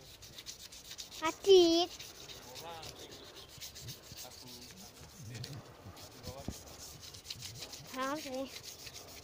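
A person's voice calls out "Adik" with a rising and falling pitch about a second and a half in, and another voice call comes near the end. A faint rubbing, crackling noise runs underneath.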